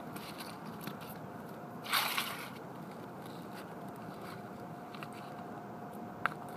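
Material rustling and scraping close against the camera's microphone, with a short louder rustle about two seconds in and a sharp click near the end, over a steady low background hiss.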